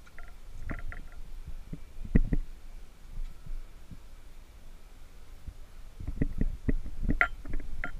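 Kettlebells being handled on rubber mats: scattered dull thumps and knocks, the loudest about two seconds in and a cluster near the end, over a low rumble.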